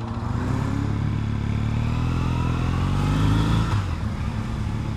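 Triumph Bonneville T100's parallel-twin engine accelerating under way, its pitch climbing steadily for about three and a half seconds, then dropping abruptly near the end.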